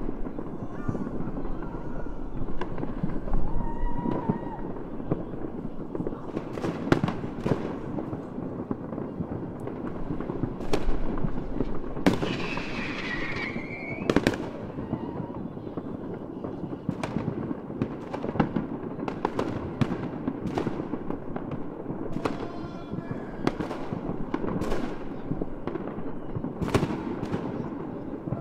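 Fireworks going off: a steady run of sharp bangs and crackles over a continuous rumble, with a short wavering whistle about twelve seconds in.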